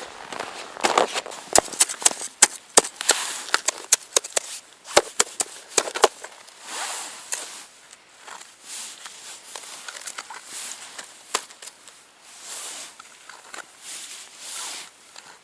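Ice and crusted snow crunching and cracking: a dense run of sharp cracks and clicks over the first six seconds, then softer scraping swishes.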